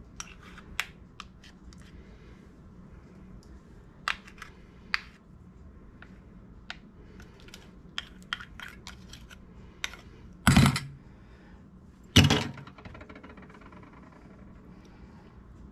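Metal spoon clicking and scraping against a plastic measuring spoon and a mixing bowl while mayonnaise is scooped out. Near the end there are two loud knocks about a second and a half apart, the second ringing on briefly, as a spoon is rapped on the bowl to knock the mayonnaise off.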